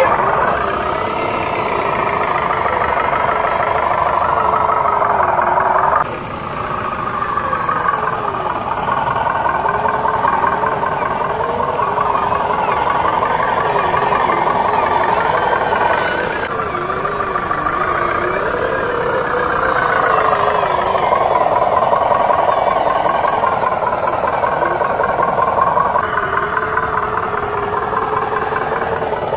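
Diesel truck engine sound running and revving, its pitch rising and falling with the throttle, broken off and picked up again abruptly twice.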